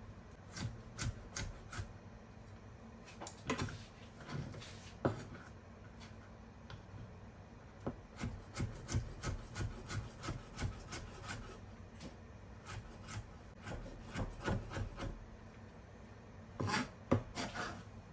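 Kitchen knife slicing vegetables on a wooden chopping board: scattered cuts at first, quicker runs of strokes in the middle, and a few louder strikes near the end.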